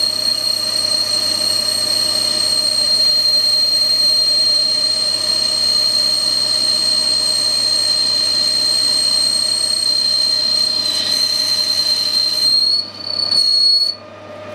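Metal lathe cutting stainless steel with a tool inside the bore of the spinning part: a steady, high-pitched squeal from the cut over the low hum of the running lathe. Near the end the squeal dips, rises a little in pitch, then cuts off suddenly.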